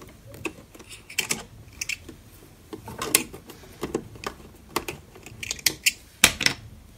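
Irregular clicks and taps as hands position the boned lining fabric under the presser foot of a Pfaff Tiptronic sewing machine, with no steady stitching rhythm.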